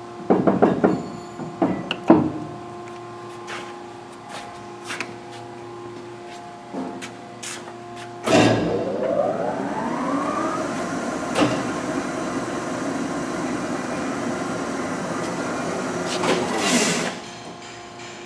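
Tuda Jumbo 1250/4000 engine lathe, a heavy 1982 machine with a 30 hp motor: a few clunks as the chuck is handled and controls are worked, over a steady hum. About eight seconds in the spindle drive starts with a loud clunk, and a gear whine rises for about two seconds as the big chuck comes up to speed in the low range, then runs steady. Near the end a short loud rush of noise comes as the drive is stopped, and the sound falls back to the hum.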